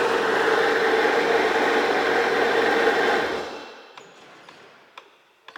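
Sea-Doo GTX DI's 951 direct-injection two-stroke twin engine idling steadily, then dying away about three seconds in. A few light clicks follow.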